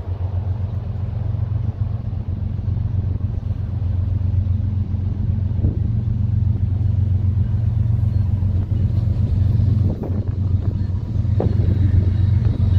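Approaching freight train's GE diesel locomotives, a CN ES44DC leading a C44-9W, giving a steady low engine rumble that grows louder as they near.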